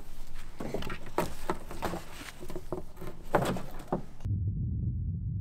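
Rope and a cardboard box being handled: scratchy rustling with a string of sharp clicks and knocks. About four seconds in it switches suddenly to a steady low rumble.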